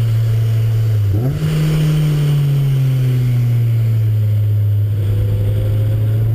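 Car engine running under track driving: its pitch jumps up sharply about a second in, then falls slowly as revs drop, and begins rising again near the end.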